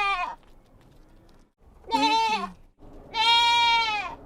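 Farm animal bleating: one long, held call that ends just as the sound opens, and a second about three seconds in, each slightly falling in pitch at the end.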